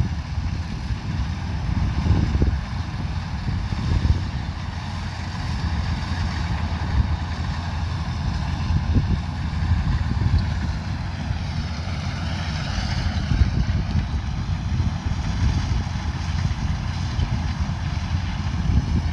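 Kubota DC105X combine harvester running steadily under load, a deep rumble with a layered mechanical whine above it; the whine rises and falls slightly about twelve seconds in.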